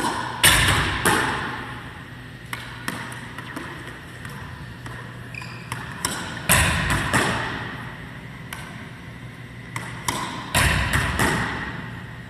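Racquetball ceiling shots: the ball smacked by the racquet and rebounding off the ceiling, front wall and hardwood floor of an enclosed court. Each hit is a sharp pop with a ringing echo, and the hits come in three bursts a few seconds apart.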